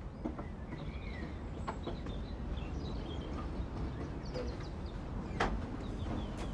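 Birds chirping over a low steady background rumble, with a few sharp clicks and knocks from front doors being shut and opened; the loudest knock comes about five seconds in.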